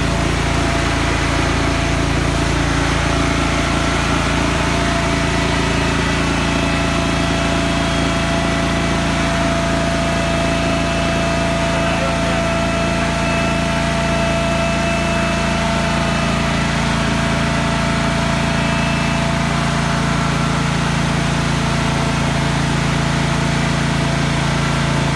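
Forklift engine idling steadily, its pitch holding even with no revving.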